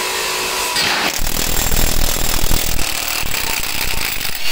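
Makita TW001G 40V cordless impact wrench on a truck wheel's lug nut: the motor whirs, then about a second in the hammer mechanism starts impacting rapidly and keeps on, breaking the nut loose to take the wheel off.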